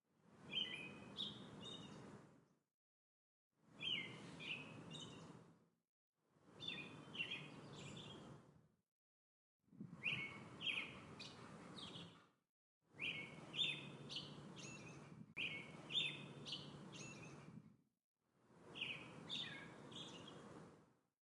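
A bird singing short phrases of quick chirps, about seven times. Each phrase comes with faint outdoor background hiss and is cut off by a second of dead silence before the next one starts.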